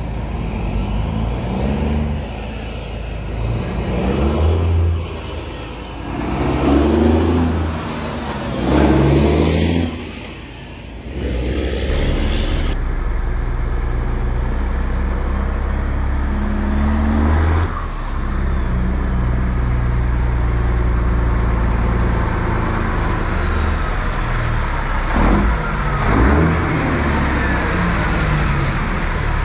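1994 Kenworth T600's 12.7-litre Detroit Diesel engine pulling hard, revs climbing and dropping back several times as it shifts up through the gears, then a steady heavy diesel note as the truck and trailer come past close by near the end.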